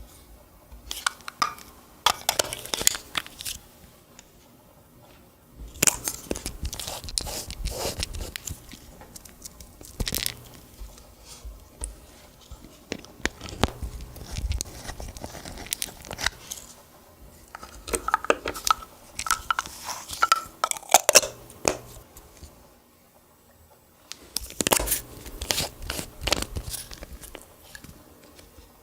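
Clear slime being squished and kneaded by hand, giving bursts of sticky, wet clicking and crackling with short quiet pauses between handfuls.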